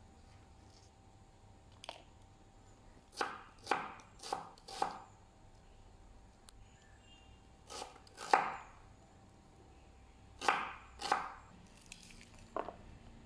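Knife chopping on a cutting board: four quick strokes about half a second apart, then two pairs of strokes, and a softer single stroke near the end.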